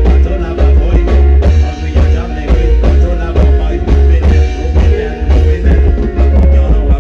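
Loud music with a heavy bass line and a regular drum beat.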